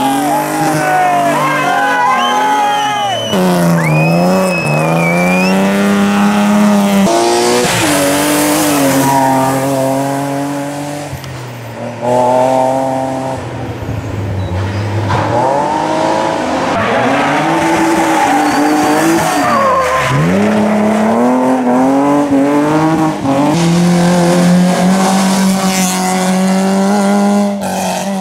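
Competition cars' engines revving hard, the note climbing and dropping again and again with gear changes and lifts off the throttle, falling sharply twice. In the first seconds a saloon slides sideways with its rear tyres spinning and smoking, adding tyre squeal.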